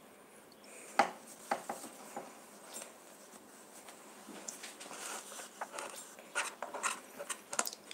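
Quiet, scattered clicks, taps and rubbing of things being handled on a table, with a sharper knock about a second in and a run of clicks near the end.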